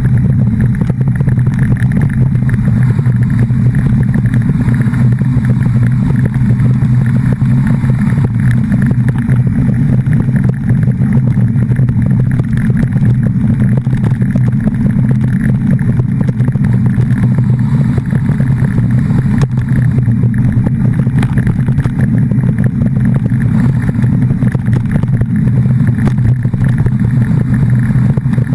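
A vehicle's engine running steadily at a constant pitch while moving, with a continuous drone of road and wind noise.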